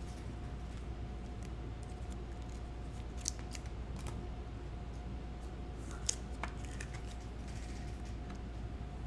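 A few light clicks and ticks from cards and packaging being handled, over a steady low electrical hum with a faint steady tone.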